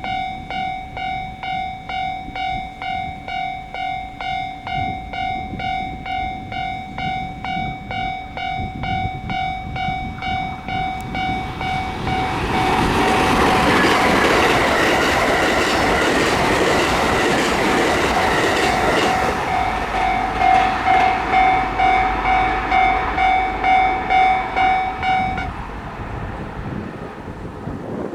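Japanese level-crossing warning bell ringing in an even, steady beat, with a train rushing through the crossing for about seven seconds from about twelve seconds in, its noise covering the bell. The bell rings on after the train has passed and stops a few seconds before the end.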